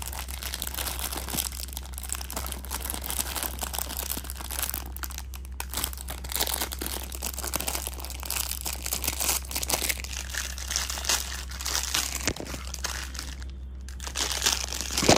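Clear plastic packaging bag crinkling and rustling as it is handled and pulled open to get a toy out, with brief pauses about five seconds in and near the end.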